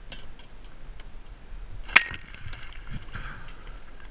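A sharp knock about two seconds in, then splashing water and line handling as a fish hooked on a ditty-pole hand line is hauled toward the kayak.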